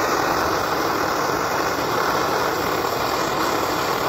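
1952 Rogers military single-burner pressurized liquid-fuel stove burning at full flame, a steady even rush.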